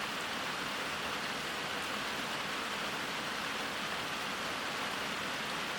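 Steady rain falling, an even hiss with no pauses or separate drops standing out.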